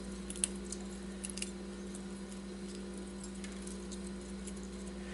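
Faint, scattered light clicks and rustles of thin copper magnet wire being handled while it is unwound from a transformer coil, over a steady low hum.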